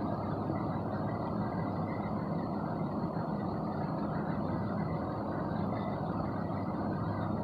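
Steady background rumble with a faint steady whine above it, and no distinct events.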